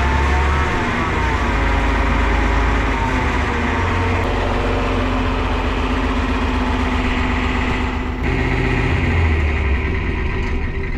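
Heavy vehicle engine running steadily, its tone shifting about eight seconds in.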